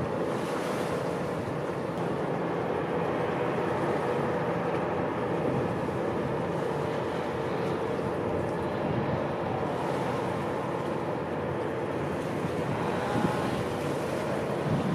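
Steady machinery drone of a self-unloading lake freighter discharging gravel, its boom conveyor and shipboard machinery running with a faint steady hum, mixed with wind on the microphone.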